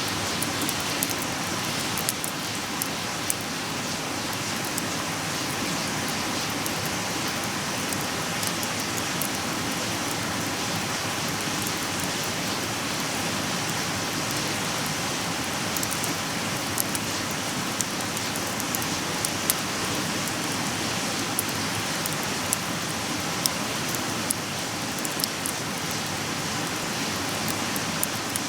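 Wood fire crackling, with sharp irregular pops over a steady hiss.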